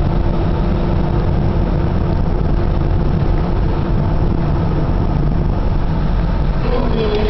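Steady low rumble of a car's engine and tyres heard inside the cabin while driving along the highway. About seven seconds in, music starts over it.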